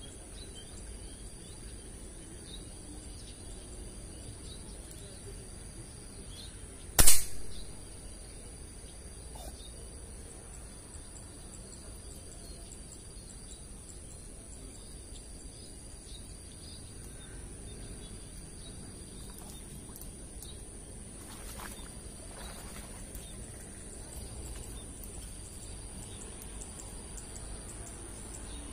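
A single shot from a PCP air rifle rigged for dart fishing: one sharp crack about seven seconds in with a brief tail, the loudest thing by far. Before and after it there is only quiet outdoor background.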